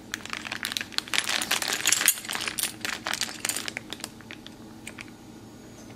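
A clear plastic bag of metal brackets, bolts and nuts being handled: the plastic crinkles and the metal pieces clink against each other. It is busiest in the middle and dies away after about four seconds.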